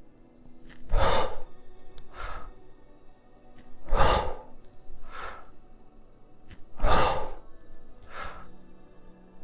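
A man breathing hard in rhythm with kettlebell push-press reps: three loud, sharp breaths about three seconds apart, each followed about a second later by a shorter, quieter breath. Faint background music runs underneath.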